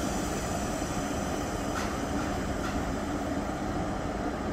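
Air compressor of a BB 22200 electric locomotive running: a steady mechanical drone with a low hum in it, with a few faint clicks from about two seconds in.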